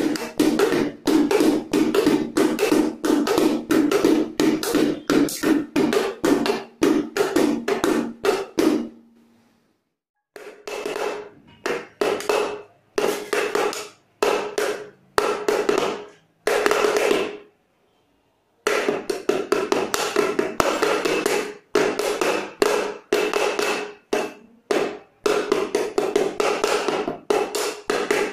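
A small wooden-shelled drum beaten with a pair of pencils: fast rhythmic strokes, several a second, each with a short ring. It plays in three runs, with brief breaks about nine and seventeen seconds in.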